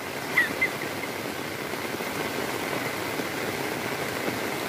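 Steady hiss of rain falling on an open umbrella and on floodwater, with one short high chirp about half a second in.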